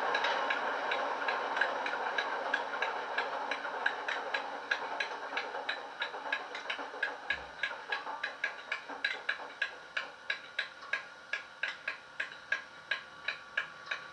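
Coastal DCC Class 47/4 sound file playing from the speakers of a stationary model Class 47 diesel locomotive. The engine sound dies down while a steady ticking, about three ticks a second, comes through more clearly, with a brief low thud about seven seconds in.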